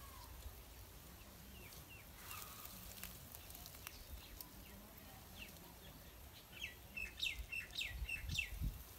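Small birds chirping faintly: short high chirps here and there, then a quick run of them near the end. A few soft low thumps come near the end as well.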